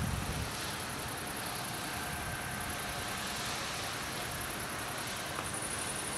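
Crickets chirring in a fast, even, high-pitched pulse over a steady outdoor hiss, with louder trills coming in near the end.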